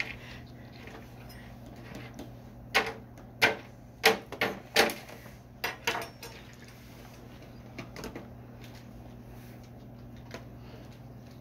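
A quick run of about eight sharp clacks or knocks over three or four seconds, then a few faint ones, over a steady low hum.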